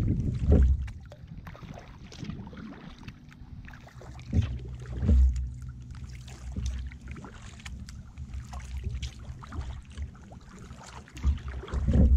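Kayak paddling on calm water: paddle blades dipping and dripping, with scattered small splashes and a few low thumps.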